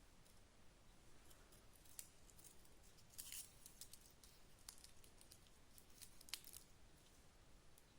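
Near silence with a few faint, sharp clicks and ticks of small parts being handled: one about two seconds in, a short rattle of clicks around three and a half seconds, and a crisper tick a little past six seconds.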